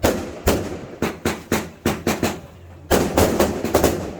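Fireworks going off: a run of sharp bangs about two a second, turning into a dense, rapid volley about three seconds in.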